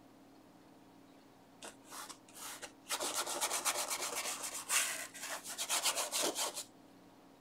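A stiff bristle brush scrubbing oil paint onto textured canvas. A few separate scratchy strokes start about two seconds in, then a quick run of back-and-forth scrubbing strokes lasts close to four seconds and stops shortly before the end.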